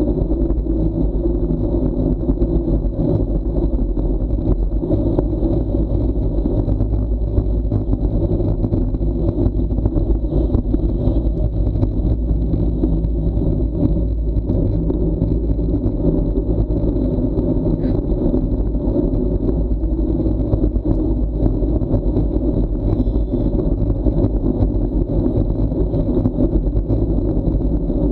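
Steady, loud low rumble of wind and road noise picked up by a bicycle-mounted action camera on a fast descent.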